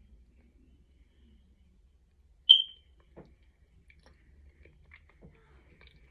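One short, high electronic beep about two and a half seconds in, the loudest sound, over faint mouth noises of someone chewing snacks.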